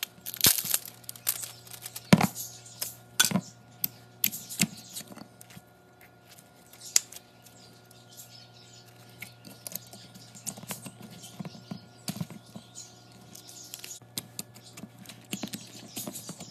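Fingers pressing and squishing thick white slime, giving sharp clicking pops that are loudest in the first few seconds, then softer, quicker crackling. A faint steady low hum sits underneath.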